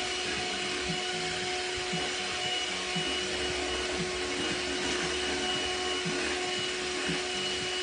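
Electric hand mixer running at a steady speed, its beaters whipping homemade ice cream mix in a glass bowl: an even motor whine.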